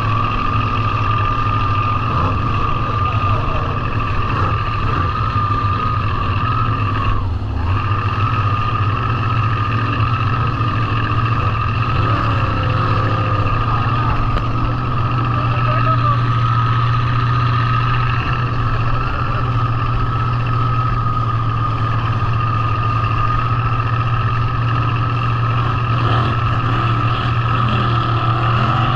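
A motorboat's engine running at a steady, unchanging pitch while under way, over the rush of water along the hull and wake.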